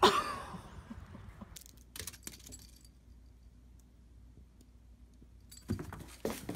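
A sharp clattering crash at the very start that rings away over about a second, followed by a few light clicks. Near the end come several quick soft knocks and rustles from a cat leaping into a cardboard box.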